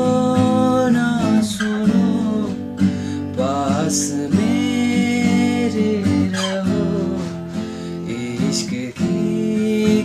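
Yamaha F310 steel-string acoustic guitar strummed in chords, with a man singing long held notes over it; the chord changes about two-thirds of the way through.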